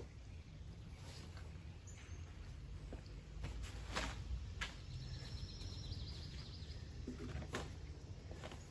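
Squash stems being cut back during pruning: a few sharp snaps and rustling of leaves, the loudest snaps about four seconds in and again near the end. A bird chirps briefly in the middle, over a low steady outdoor rumble.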